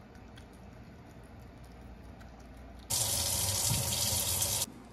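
Kitchen faucet running a steady stream of water into a sink, starting suddenly about three seconds in and cutting off abruptly under two seconds later; before it, only faint background.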